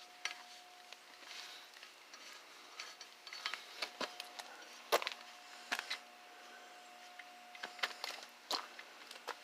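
Scattered light metallic clicks and taps as bolts are twisted in by hand, over a faint steady hum.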